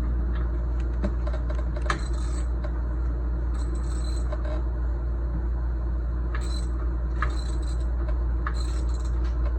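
Hand tools and small steel bolts clinking and scraping on the tiller's metal parts: scattered sharp metallic clicks with a brief ring, over a steady low hum.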